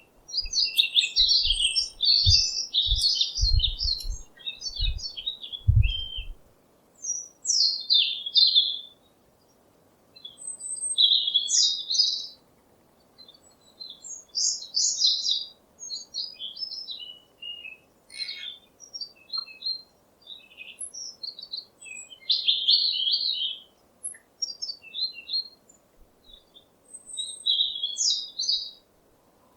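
Songbirds chirping in quick bursts of high notes, phrase after phrase with short pauses between. A few low thuds sound during the first six seconds.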